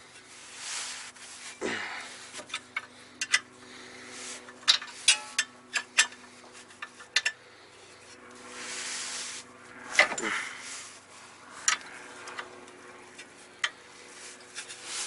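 Hand wrench working stubborn front-suspension bolts on a VW Mk4: irregular metallic clicks and clinks, with a couple of grunts of effort and heavy breaths.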